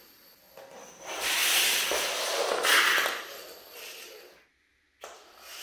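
Simple electromagnetic train, a battery with neodymium magnets on its ends, running through a bare coiled-wire track: a hiss that swells about a second in and fades again, cuts off suddenly near the end, then starts again.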